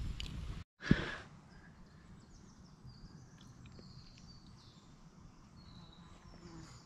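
A wood campfire crackles for the first half-second, then the sound cuts out; a single loud knock follows about a second in. After that, faint birdsong of short high chirps over quiet woodland.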